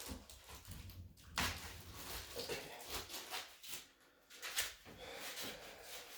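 Rustling, clicks and a few sharper knocks of shipping packing pieces being handled and pulled off a newly unboxed 3D printer.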